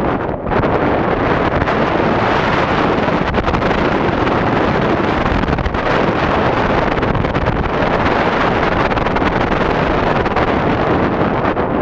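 Loud, steady wind rushing over an action camera's microphone during a descent under an open ram-air parachute canopy, with a brief dip about half a second in.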